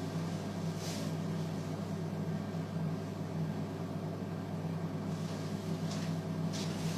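A steady low hum, with a few faint brief rustles about a second in and near the end.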